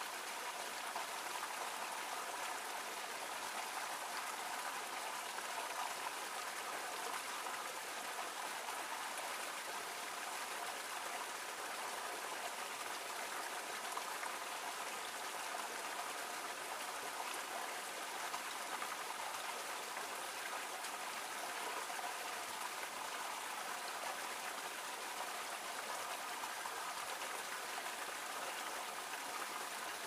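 A small waterfall splashing steadily into a shallow creek pool. The sound is a light, even patter of falling water, with little low rumble.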